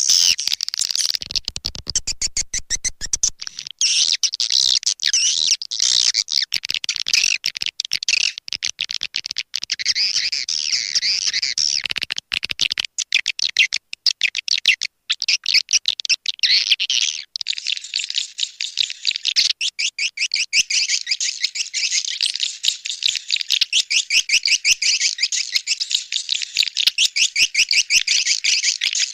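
Swiftlet calls played as a lure to draw swiftlets to a nesting house: a rapid, continuous twittering chatter of quick chirps, with short breaks. Past the middle it settles into a denser, steadier trill.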